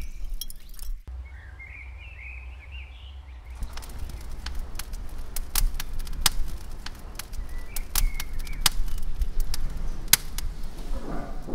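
Oak lump charcoal fire crackling with many sharp pops over a low steady rumble of flame, the crackling starting a few seconds in. Birds chirp now and then in the background.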